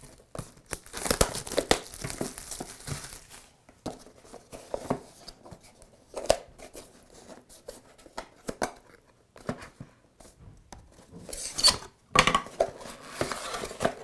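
Clear plastic shrink wrap crinkling and tearing as it is pulled off a cardboard product box, with cardboard rubbing and tapping as the box is handled and opened. The loudest rustling comes in two spells, about a second in and near the end.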